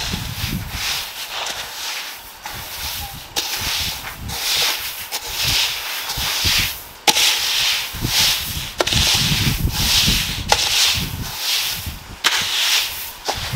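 Repeated rough scraping or rubbing strokes, roughly one a second, with a sharp knock every couple of seconds.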